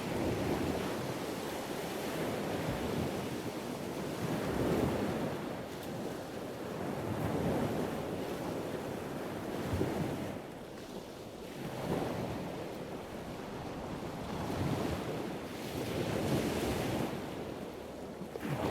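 Waves washing in and out, the noise swelling and falling every two to three seconds, with wind buffeting the microphone.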